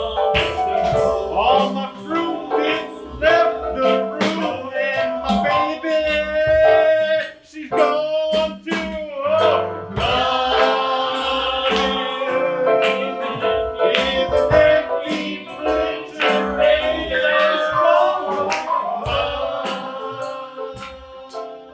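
Improvised song performed on stage: singing over instrumental accompaniment with a steady beat, fading near the end.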